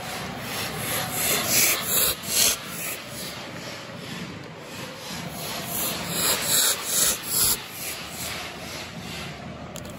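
Pyrotechnic spark fountains firing, giving two runs of quick hissing bursts, one about a second in and the other about six seconds in, over a steady rushing hiss.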